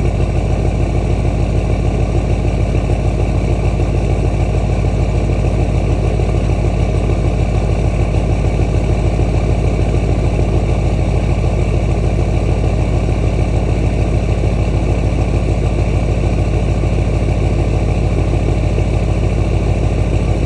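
6.6-litre LMM Duramax V8 turbodiesel idling through a 4-inch straight-pipe exhaust, a steady continuous running. This is the first minute after sitting overnight, when the owner reports a brief rough, uneven idle that clears once the engine has run a while.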